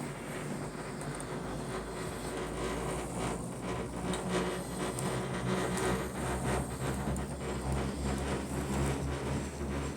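Cableway gondola cabin running along its cable: a steady low mechanical hum with scattered light clicks and rattles.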